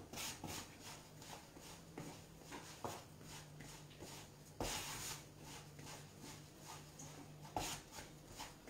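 Hands kneading piadina dough on a floured wooden board: soft rubbing and pressing, with a few light thumps, the clearest about five seconds in and again near the end.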